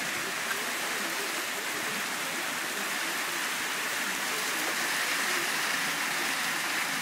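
Small hail mixed with rain falling on concrete and the surroundings, a steady dense hiss.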